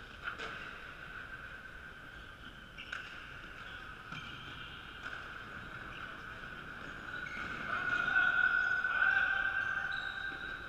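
Echoing sports-hall ambience of an indoor ultimate frisbee game: scattered shoe squeaks on the wooden floor and distant players' calls. It gets somewhat louder near the end.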